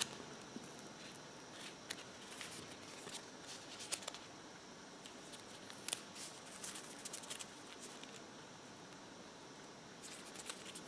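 Faint rustling and crinkling of a paper-backed decal sheet being handled, with a few scattered light clicks as the backing paper is peeled away from the transfer film.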